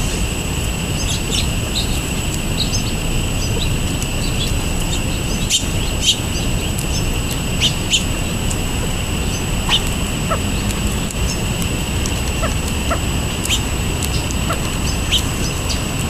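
Scattered short chirps of small songbirds, a few at a time, over a steady low rumble and a constant high-pitched tone.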